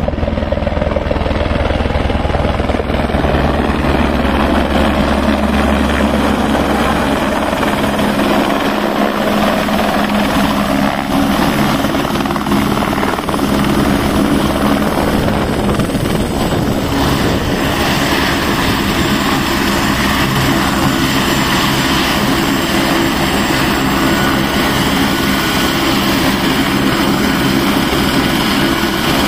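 Single-engine turbine helicopter of the AS350/H125 type, its rotor beating strongly as it comes in. After about seven seconds it settles into a steady running sound with a turbine whine, rotor still turning, as it idles on the pad.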